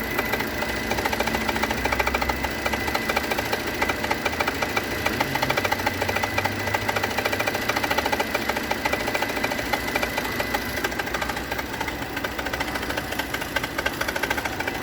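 Renault Duster engine running with a fast, even ticking and a steady high whine: the unwanted noise that appeared about 1000 km after the timing belt, drive belt and water pump were replaced.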